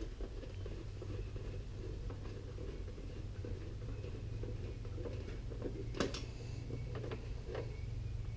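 Small irregular clicks and taps of hand tools working on the mower, with one sharper click about six seconds in, over a steady low hum.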